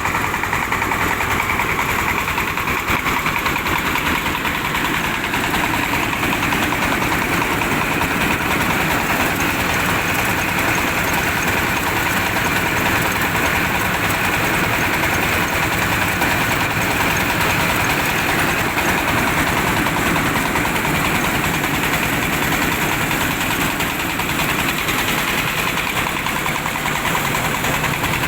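Diesel engine of a mobile rice-hulling machine, running steadily.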